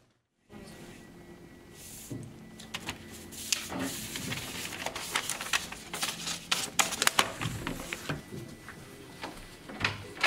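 Sheets of paper rustling and flicking as they are leafed through and shuffled on a desk, a run of quick crisp rustles, over a steady faint high tone in the room noise.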